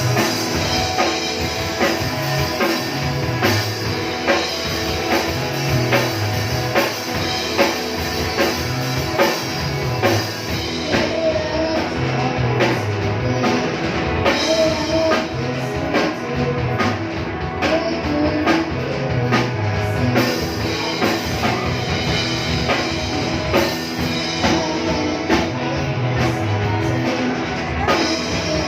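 Rock band playing live, drum kit keeping a steady beat under electric guitar and a repeating bass line.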